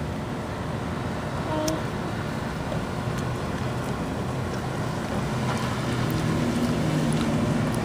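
Steady low rumble of vehicle noise, with an engine hum growing louder about five seconds in.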